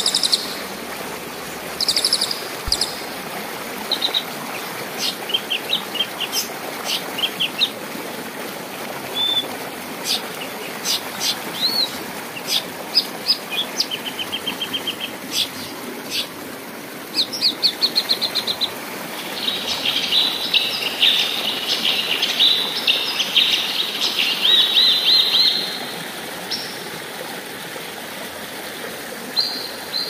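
Songbird chirps, whistles and trills over the steady rush of a stream, with a dense run of chattering song from about two-thirds of the way through.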